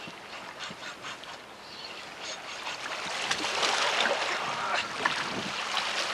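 Sea waves lapping and splashing against the rocks and concrete blocks of a breakwater, a steady wash full of small crackles and splashes that grows louder about three seconds in.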